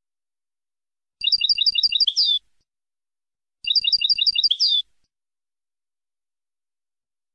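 European goldfinch song phrase in the Levantine (Shami) style: six quick, evenly spaced high notes ending in one falling slurred note. The same phrase comes twice, starting a little over a second in and again about two and a half seconds later.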